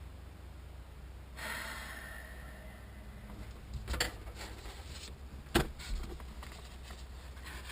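Handling noises: a brief scraping rustle, then a few sharp knocks, the loudest about five and a half seconds in, over a low steady hum.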